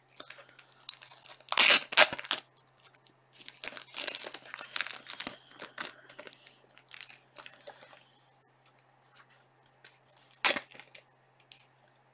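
Clear plastic card sleeves and holders crinkling and rasping as trading cards are handled and slipped in and out of them, in irregular rustles. One short, loud rasp comes near the end.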